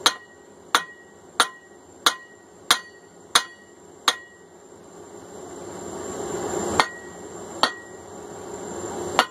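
Blacksmith's hand hammer striking hot steel on an anvil, seven blows about one and a half a second apart, each with a brief metallic ring. Then the blows stop and a rushing noise grows steadily louder, broken by three more single strikes.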